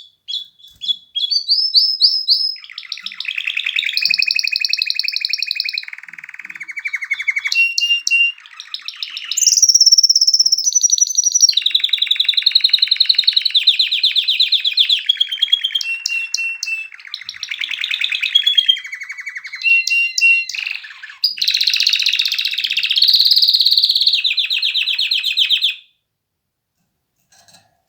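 Domestic canary in full song: a long run of rapid trills and rolls, one phrase after another at changing pitches, stopping about 26 seconds in.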